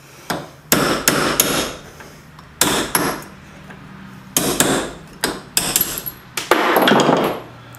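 Hammer blows on a steel punch, driving a worn bearing out of a Cub Cadet mower deck spindle housing held in a vise. About a dozen sharp metallic strikes come in uneven clusters, with a longer scraping sound near the end. The bearing is coming out slowly, tapped carefully so as not to damage the race it sits in.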